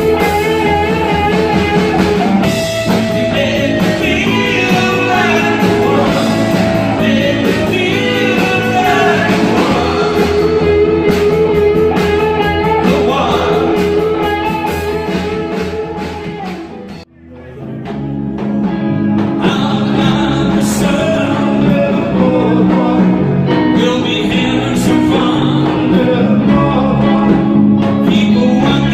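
Live band playing rock music with a male singer, drum kit and electric guitars. The music cuts out briefly about seventeen seconds in, then starts again.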